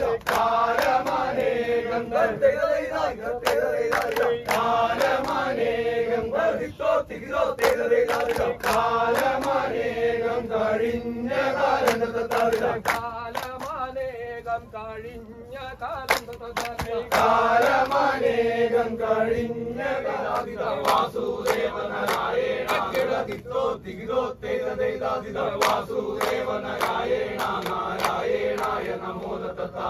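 Men's chorus chanting a Poorakkali song together, with sharp hand claps keeping time throughout. The singing thins out briefly about halfway through.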